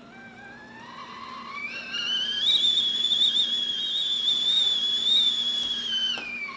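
A high whistling tone that rises steadily in pitch over about two seconds, holds with a slight waver, then falls off near the end.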